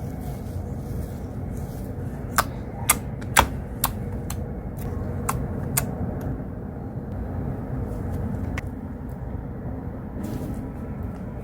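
Slime being played with by hand, giving several sharp clicks and pops, most in a quick run about two to four seconds in and a few more later. Under it runs a steady low rumble of outside noise coming in through an open window.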